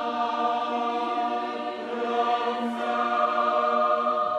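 Background music: a choir singing long held chords that change slowly, in a chant-like style.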